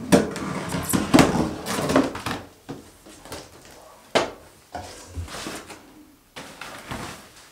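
A knife slicing along the packing tape of a large cardboard box, then cardboard flaps and pieces being pulled open and handled, with scraping and several knocks. One sharp knock comes about four seconds in.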